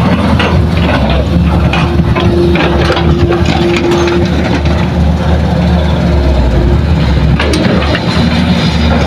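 Diesel engines of a Hitachi hydraulic excavator and idling dump trucks running steadily, with scattered knocks and clatter as soil and stones drop into the steel truck bed. A steady whine is held for a couple of seconds partway through.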